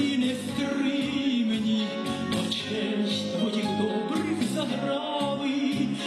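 A woman singing a Ukrainian song into a handheld microphone, with instrumental accompaniment.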